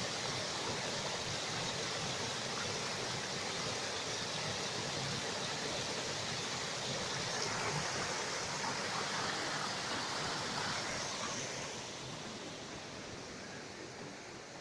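Shallow stream rushing and splashing over rocks and a small cascade, a steady water noise that grows fainter over the last few seconds.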